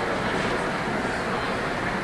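Steady background noise of a large indoor arena, with a faint murmur from the spectators.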